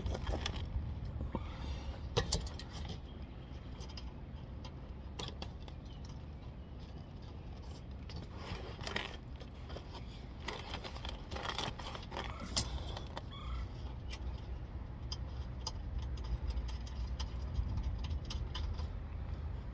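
Hand tools and metal fasteners clinking and scraping in short, scattered bursts over a steady low rumble, as the car's underbody skid plate is bolted back on.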